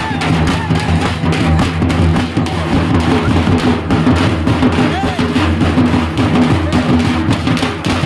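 Festival drums beaten with sticks in a rapid, steady rhythm, with crowd voices over them.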